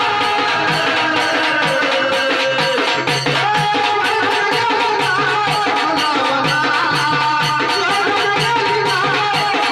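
Music from a Marathi devotional folk song: a wavering melody played over a steady, even drum rhythm.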